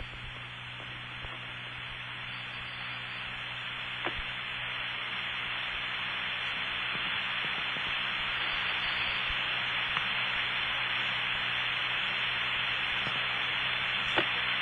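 Steady hiss and low hum of an open telephone line on an old call recording, slowly growing louder, with a faint click about four seconds in and another near the end.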